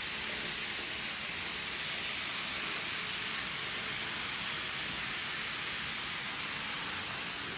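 A steady, even hiss that does not change throughout.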